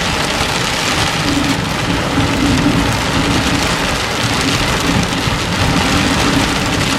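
Heavy rain pouring down on a moving car, heard from inside the cabin as a steady, dense hiss.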